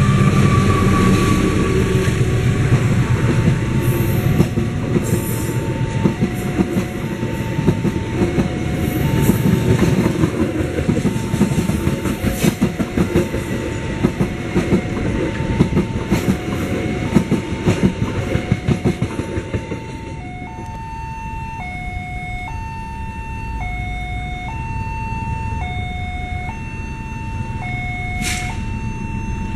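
Passenger train coaches passing at close range, wheels clattering over the rail joints, while a level-crossing alarm chimes a repeating two-note pattern. About two-thirds of the way through, the train noise drops away, leaving the crossing alarm clear over a low rumble from a train approaching in the distance.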